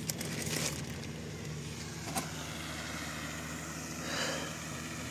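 A motor running with a steady low hum, with a plastic sack crinkling briefly at the start.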